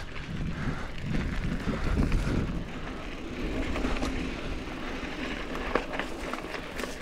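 A GT Aggressor Pro mountain bike being ridden on a dirt trail: its knobby Maxxis tyres rolling over dirt and gravel make a steady low rumble. Scattered clicks and knocks from the bike come through, mostly in the second half.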